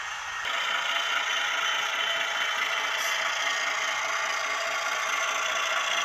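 Bowser HO-scale Alco RS-3 model diesel locomotive with a LokSound 5 sound decoder running: a steady mechanical noise with a fast, even beat that gets louder about half a second in.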